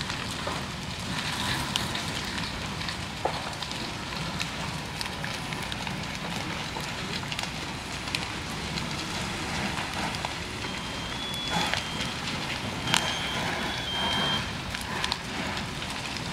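Large farm barn fully ablaze: a steady rush of burning, with many sharp crackles and pops from the burning timber. About two-thirds of the way through, a few short, high electronic beeps sound over the fire.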